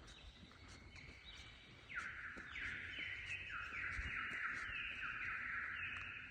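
Birds calling: a run of harsh, overlapping notes that each step down in pitch, growing louder about two seconds in.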